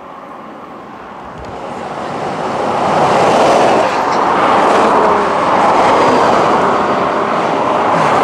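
Cars passing on a highway: tyre and engine noise swells over the first few seconds and stays loud as cars go by.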